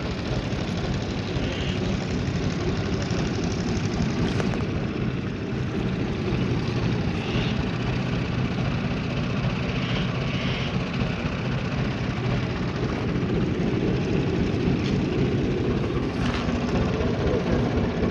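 Massey Ferguson 165 tractor's diesel engine idling steadily, a low even rumble with no change in speed.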